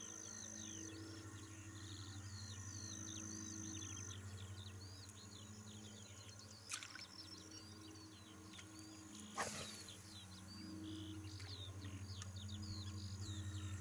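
Outdoor bird chorus: many songbirds chirping and whistling in quick overlapping notes, over a high insect-like trill that comes and goes and a low steady hum. Two sharp clicks cut through, the louder one about two-thirds of the way in.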